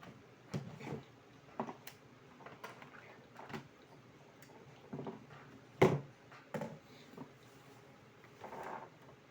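Irregular clicks and knocks of small hard objects being handled, a dozen or so spread unevenly, the loudest about six seconds in.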